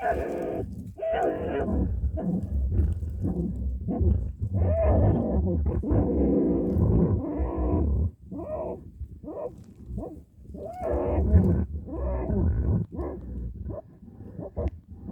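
Animals growling and snarling in a fight with a badger: rough, irregular growls that come thick and loud for about eight seconds, then in shorter broken bursts.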